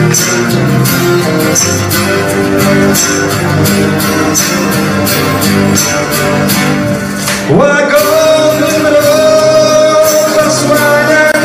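Live acoustic band music: two acoustic guitars strummed and picked over regular cajon hits. About seven and a half seconds in, a man's voice slides sharply upward into a long held note without words.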